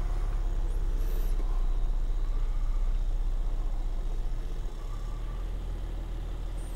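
Steady low rumble of a moving vehicle and wind on the microphone while travelling along a paved road, with a car running just ahead.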